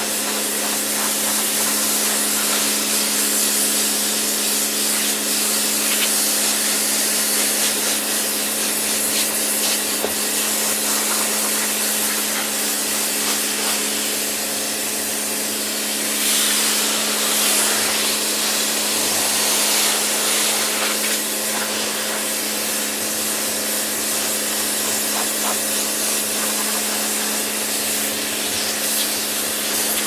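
Pressure washer running: a steady hiss of the high-pressure water jet over the constant hum of the pump motor, growing a little louder for a few seconds about halfway through.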